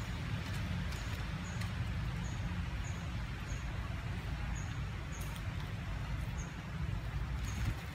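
Outdoor ambience: a steady low rumble like wind on the microphone, with a short, high chirp repeating about every half second and a few faint clicks.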